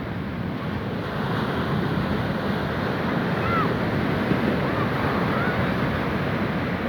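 Sea waves washing in steadily, with wind buffeting the microphone. A few faint short chirps sound in the middle.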